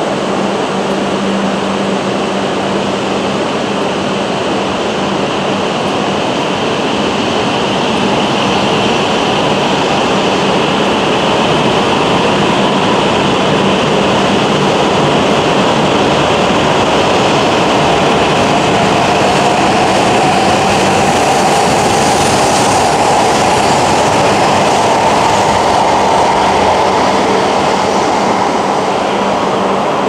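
Coupled E5 and E6 Shinkansen trainsets pulling out and accelerating past the platform: a steady loud rolling and running noise, with a whine that rises in pitch in the second half as the train gathers speed.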